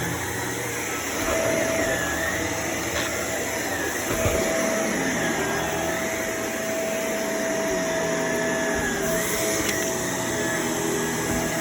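Bagless vacuum cleaner running steadily, its motor whine dipping and recovering in pitch a few times.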